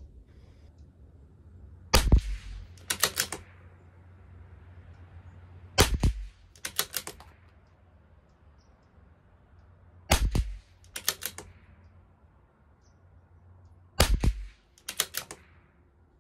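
CZ 457 LRP bolt-action .22 LR rifle firing Geco ammunition: four shots about four seconds apart. About a second after each shot comes a quick run of metallic clicks as the bolt is worked to eject the case and chamber the next round.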